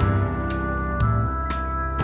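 Background music with a steady beat about twice a second and bright chiming bell-like tones.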